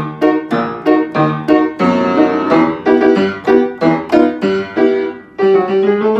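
Upright piano played by hand: a quick run of single notes and chords, each note ringing and decaying, ending in a longer held sound near the end.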